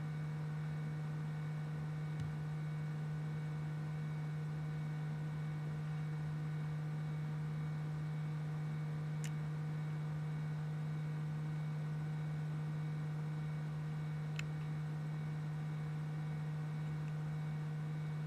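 Steady low electrical hum, with a few faint, widely spaced clicks as a metal pick pries at the plastic housing of a Powerbeats 2 earphone.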